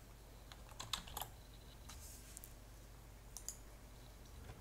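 A few faint computer keyboard and mouse clicks: a cluster of three about a second in, and two more near the end.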